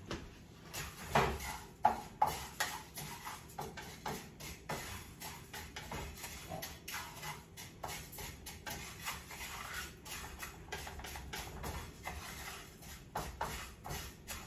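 Wooden spatula stirring raw rice grains dry-toasting in a frying pan without oil. The grains rattle and scrape against the pan in a steady stream of small, irregular clicks.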